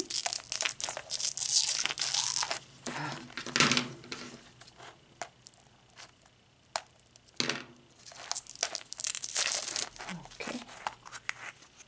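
Clear plastic shrink-wrap around a plastic surprise egg being cut with scissors and torn off, crinkling and tearing in several bursts, with a few sharp clicks in between.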